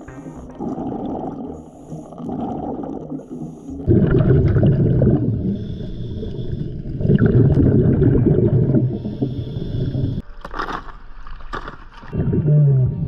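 Scuba diver breathing underwater through a regulator: two loud bursts of exhaled bubbles, each followed by a quieter hissing inhale. Near the end there are splashes as the diver breaks the surface.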